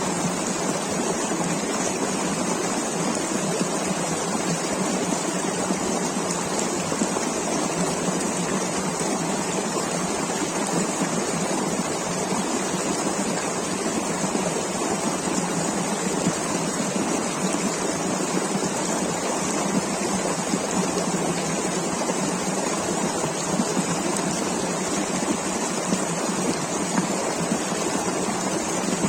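River water rushing steadily, a dense unbroken noise of flowing water.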